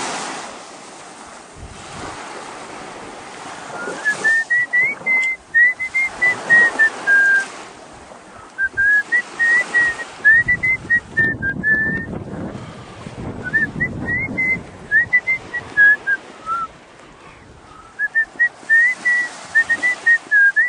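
A person whistling a tune in four phrases of quick, short notes, over the wash of small waves breaking on a sandy shore.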